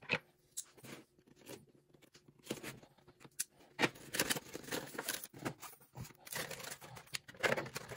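Cardboard action-figure window box being opened and its clear plastic tray slid out: irregular rustling, crinkling and scraping of plastic against cardboard, busier in the second half.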